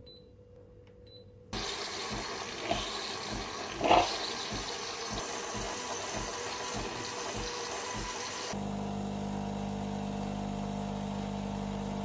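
Bean-to-cup coffee machine making a cappuccino: a loud hissing, pulsing run of pump and water, with a sharp spurt about four seconds in. From about eight and a half seconds in, a steady motor hum takes over.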